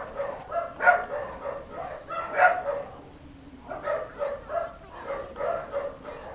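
Dogs barking in a rapid run of short yaps, two or three a second, with a short pause partway through.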